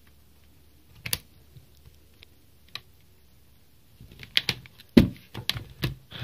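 Plastic clicks as a laptop memory module is pressed into its slot, then a run of knocks and clatter as the laptop is turned over and set down on the table, the loudest knock about five seconds in.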